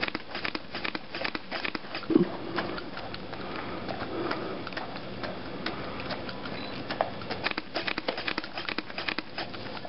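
A dog eating a cupcake off a plate: quick wet chewing and licking clicks in bunches, with one louder short sound about two seconds in.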